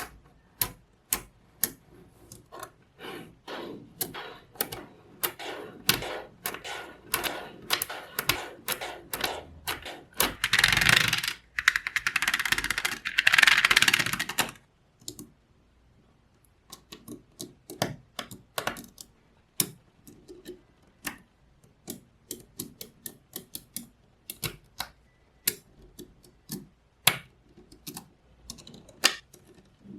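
Small magnetic balls clicking as they snap together one by one, in irregular sharp clicks. About ten seconds in there is a few seconds of continuous rattling, then the separate clicks resume more sparsely.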